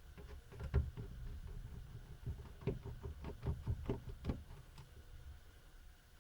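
A run of small clicks and light taps, with a louder knock about a second in: a screwdriver and small screws being handled against a laptop's plastic case while its bottom screws are removed.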